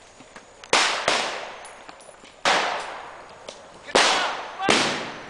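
Blank gunshots from reenactors' rifles, five or so single shots at uneven intervals, each sharp crack trailing off over about a second.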